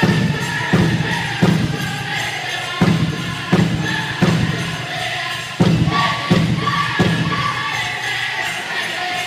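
Pow-wow drum group singing a chicken dance song, with a large drum struck in groups of three heavy beats and short pauses between. The drumming stops about seven seconds in while the voices carry on singing.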